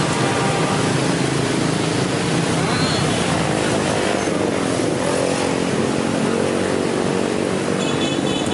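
Steady din of street traffic, with motorbike engines running by.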